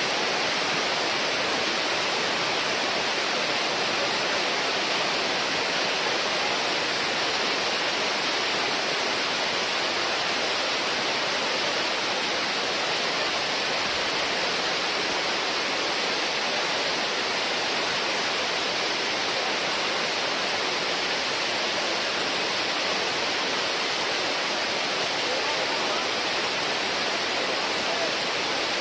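Artificial waterfall: water pouring down in a steady, unbroken rush.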